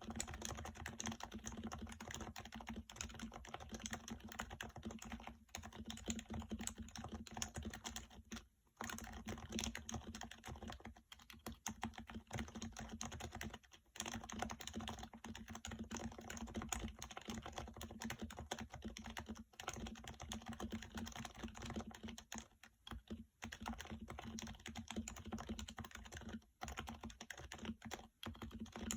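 Steady typing on a Topre electrostatic-capacitive keyboard fitted with 55g rubber domes, a fast run of soft key strokes broken by a few short pauses.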